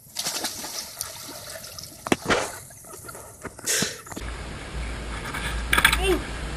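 Water splashing and sloshing as a person wades and lunges through a pond thick with lily pads, with a few sharp splashes about two and four seconds in. Then a steady low rumble of wind on the microphone.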